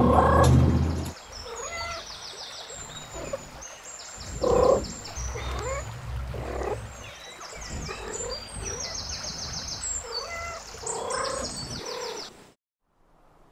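Animal calls mixed with repeated rapid high chirps, with two louder low rumbling bursts, one at the start and one about four and a half seconds in. It all cuts off suddenly about twelve and a half seconds in.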